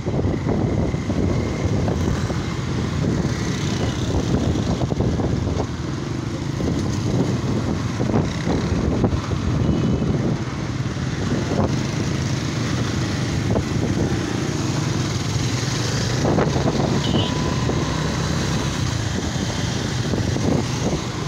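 Motorcycle engine running steadily under way in traffic, with wind buffeting the phone's microphone and the sound of passing cars and motorbikes.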